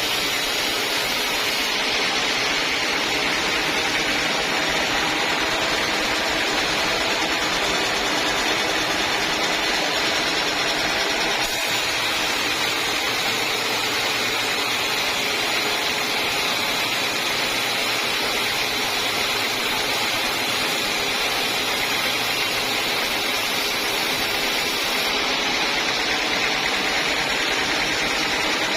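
Sawmill saw running steadily, sawing a teak log into boards.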